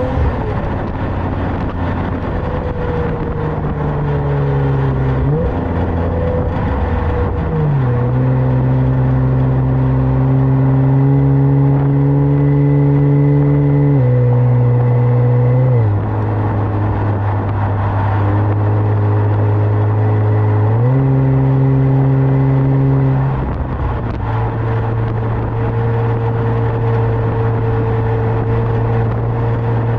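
Kia Stinger with a custom Y-pipe exhaust running under way at a steady cruise, a steady exhaust drone whose pitch steps down and back up several times as engine speed changes.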